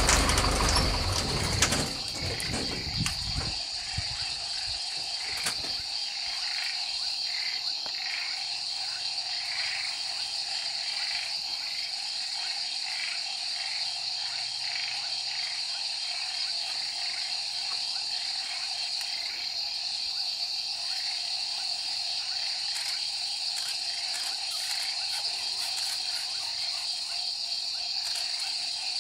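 Night chorus of insects and frogs: a steady high-pitched insect trill over a pulsing frog chorus. During the first few seconds a vehicle engine dies away.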